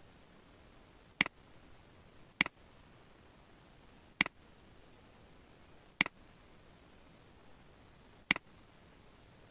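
Computer mouse button clicking five times, one sharp click every one to two seconds, over a faint steady hiss.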